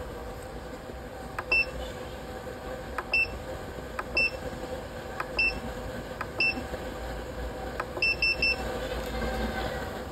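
Battery spot welder's control-board buzzer giving short high beeps as its panel buttons are pressed to change settings, each beep just after a faint button click; about eight beeps a second or so apart, the last three in a rapid run near the end.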